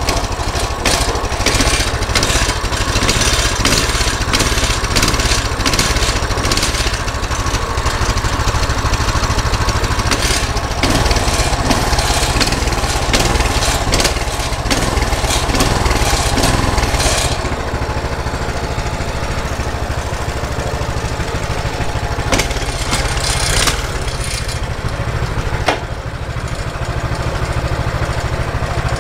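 Coleman CT200U mini bike's single-cylinder four-stroke engine running steadily, freshly started on the choke. Its higher-pitched noise drops back about seventeen seconds in.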